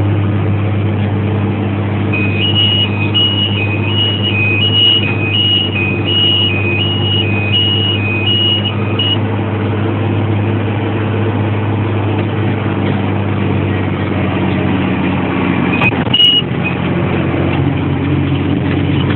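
Fendt 514C Turbo tractor engine running steadily. From about two seconds in, an electronic beeper sounds a rapid alternating two-tone warning for roughly seven seconds. A single short beep comes later.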